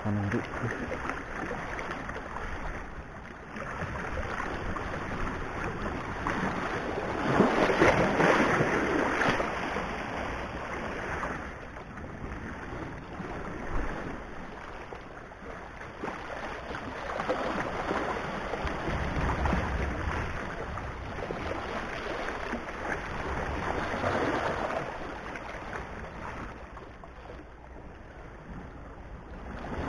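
Sea waves washing against the rocks of a seawall, swelling and easing every several seconds, the loudest surge about a quarter of the way in.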